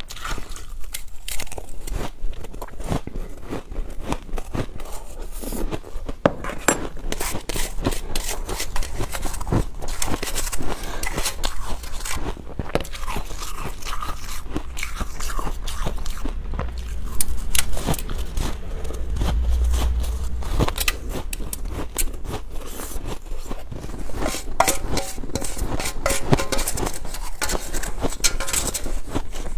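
Ice being bitten and chewed close to the microphone: a dense, irregular run of sharp crunches and cracks.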